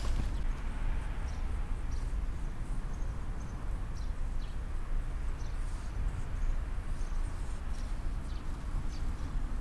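Outdoor background noise: a steady low rumble, with a few faint, short high chirps scattered through.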